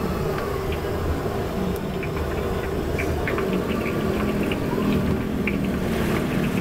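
Battered tempe deep-frying in a wok of hot oil, sizzling with scattered small pops, over a steady low rumble.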